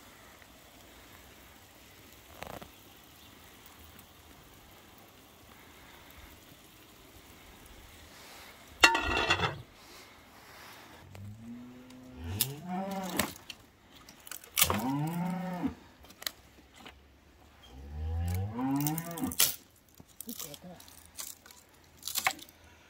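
Cattle mooing: three drawn-out calls in the second half, each rising and then falling in pitch. A short, loud noise comes a few seconds before the first call.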